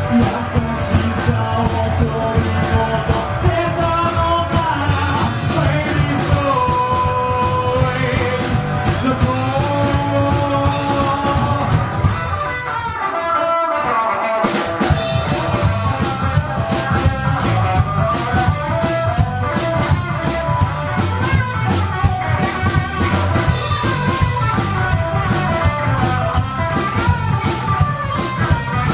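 Rockabilly band playing live, with singing, electric guitar and drums. The full band drops out for about two seconds near the middle, then comes back in.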